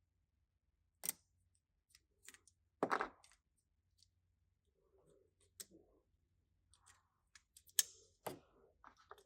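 Scattered light clicks and taps of a small hand tool and plastic connector parts being handled, with the loudest knocks about three seconds in and again near the end.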